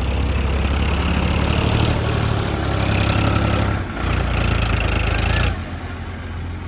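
Heavy diesel machinery engine running hard with a deep rumble, easing for a moment near four seconds, then dropping to a quieter, steady running about five and a half seconds in.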